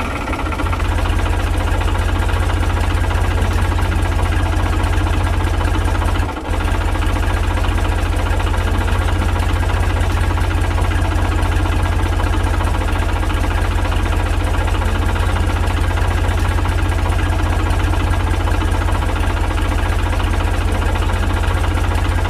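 Tractor engine sound running steadily at idle, a low rumble with an even pulse, dipping briefly about six seconds in.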